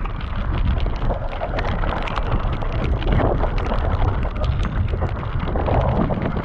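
Wind buffeting the microphone as a mountain bike descends a wet trail, with the tyres and frame rattling over stones in many short clicks and knocks.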